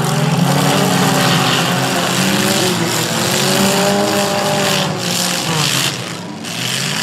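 Several figure-8 race cars' engines running together, their pitch rising and falling as the cars accelerate and back off through the turns on the dirt track.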